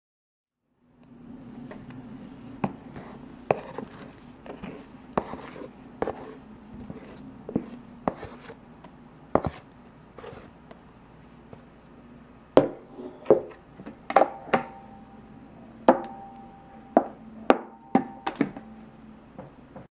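Cake batter being scraped out of a glass bowl into a metal baking pan: irregular sharp knocks and taps, with louder strikes in the second half that ring briefly, over a low steady hum.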